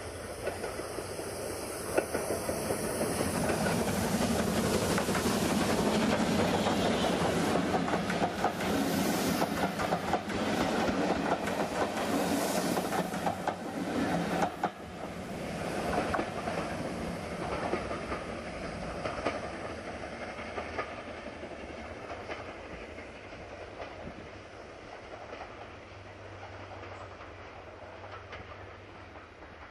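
Steam train passing: LMS Jubilee class three-cylinder 4-6-0 No. 5690 Leander working past, then its carriages clattering over the rail joints. The sound is loudest through the first half and fades steadily as the train draws away.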